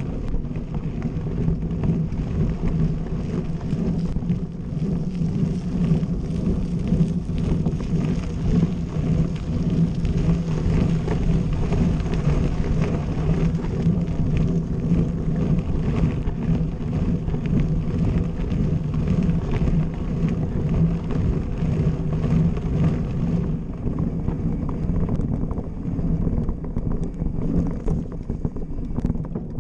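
Mountain bike rolling fast over a gravel track, heard through a bike-mounted action camera: a steady rumble of tyres on loose stones and frame vibration, with wind on the microphone. The higher hiss thins out near the end.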